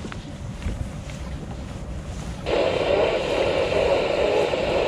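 Wind buffeting the microphone on a small boat at sea. About halfway in, a louder steady rushing noise starts suddenly and cuts off abruptly at the end.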